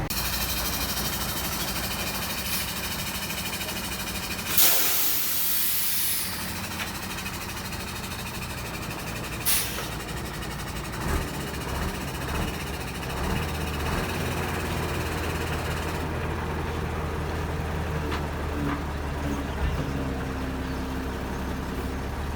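Z3050x16 radial drill press running with a steady motor hum. A loud hiss rises about four and a half seconds in and lasts a second or two, with a sharp click a few seconds later and a few lighter knocks after that.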